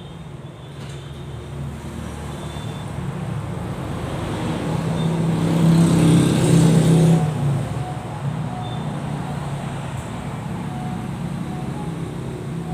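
A motor vehicle's engine running steadily, swelling to its loudest about six to seven seconds in, then easing back.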